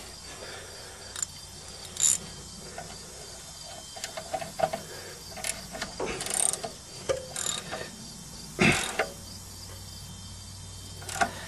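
Metal clicks and clinks of a wrench working the alternator's mounting bolt while the slipping alternator belt is tightened, with one louder clank about three-quarters of the way through. Crickets chirp steadily in the background.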